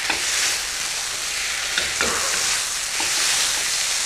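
Lamb pieces with onion and garlic sizzling steadily in a hot kadhai as a spatula stirs and browns them, with a few clicks of the spatula against the pan.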